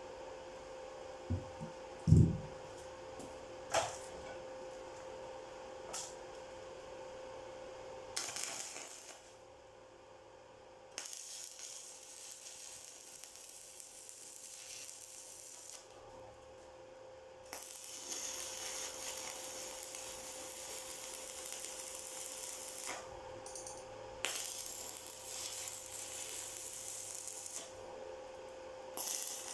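A few knocks, the loudest about two seconds in. Then an electric welding arc crackles and sizzles in several stretches of a few seconds each, with short pauses between them, over a steady faint hum.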